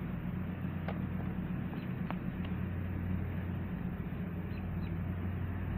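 A steady low machine hum, with a few faint sharp clicks.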